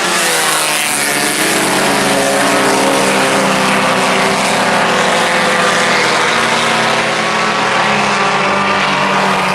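Several four-cylinder IMCA Sport Compact race cars running together at racing speed, their engines holding a loud, fairly steady note.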